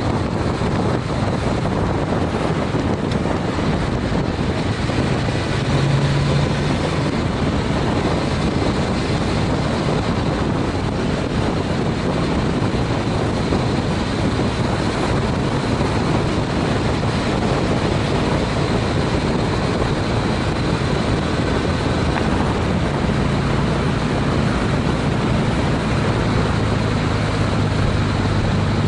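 Wind noise rushing over the camera on a Honda CTX700N motorcycle at highway speed, about 50 to 55 mph, with the low hum of its parallel-twin engine faintly underneath.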